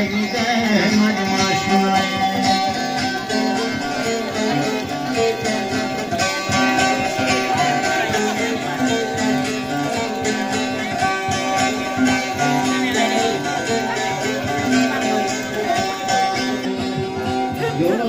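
Turkish folk dance music played on a bağlama (saz), a plucked long-necked lute, with steady pitched lines and a quick, even picking rhythm.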